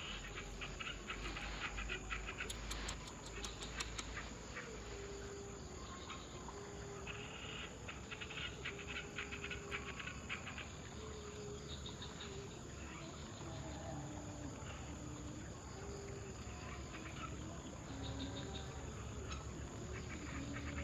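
Crickets and other insects chirping in a steady chorus, with bursts of clicking trills and a lower held call that steps up and down in pitch.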